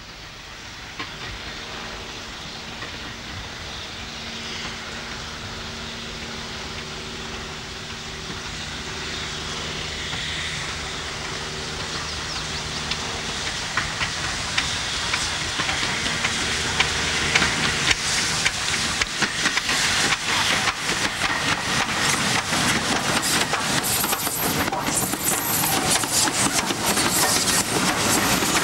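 Steam train drawing nearer and getting steadily louder, with steam hissing. In the second half it turns into a fast clatter of wheels over the rail joints.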